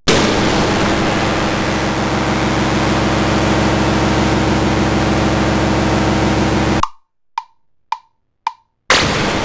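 Loud, harsh electronic noise synthesized in GarageBand, a hissing roar with steady low hum tones under it. It cuts off suddenly about two-thirds of the way in, four short evenly spaced clicks follow, and then the noise starts again near the end.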